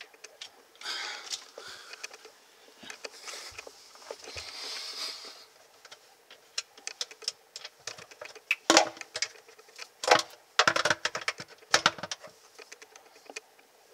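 A small Phillips screw being fitted and turned into the plastic storm wash assembly on a dishwasher's sump cover: irregular sharp clicking and ticking of metal on plastic, sparse at first and then in quick clusters, loudest about nine seconds in and again from ten to twelve seconds.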